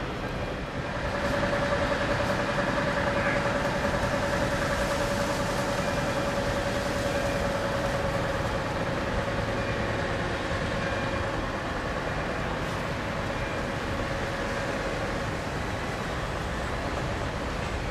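Scania V8 diesel truck engine running on the road. A steady whine comes in about a second in and fades away over the following seconds, while the overall sound eases off slowly.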